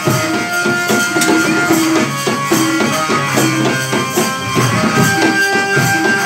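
Loud music for a dance-drama: a busy percussion beat under held melodic notes.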